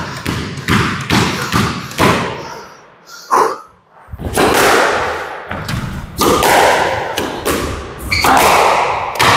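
Squash rally: the ball struck by rackets and smacking against the court walls in a quick, irregular series of hard hits about every half second, each with a short echo off the court, with a brief lull about three seconds in.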